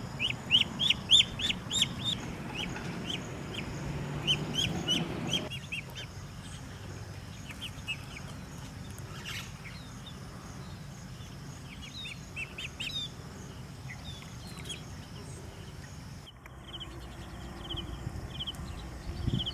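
Birds chirping: a rapid run of short high calls through the first five seconds, then sparser calls.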